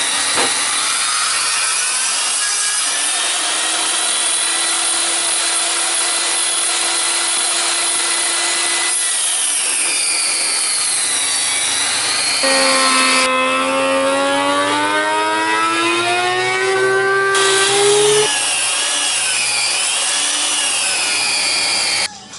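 Portable table saw resawing a black cherry board stood on edge against the fence. The blade's whine dips and climbs in pitch as the wood is fed through, and the sound cuts off sharply near the end.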